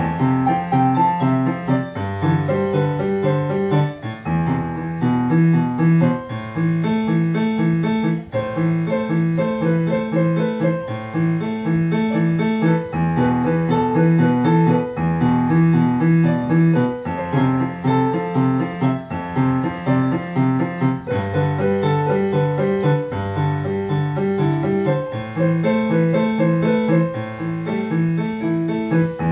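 Solo piano playing a song: repeated chords in an even pulse under a melody, the harmony changing every couple of seconds.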